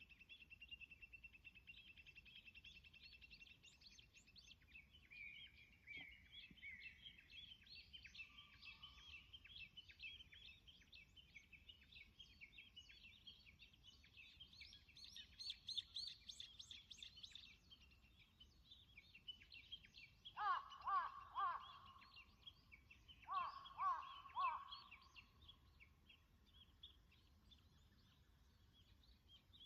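Several wild songbirds singing and chirping faintly, with dense, high, rapid phrases. About two-thirds of the way through, two louder, lower calls of quickly repeated notes stand out, about three seconds apart.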